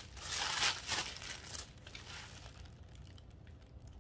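Tissue paper crinkling as it is pulled back from the bag. The rustling is loudest in the first two seconds, then dies down to a few faint clicks.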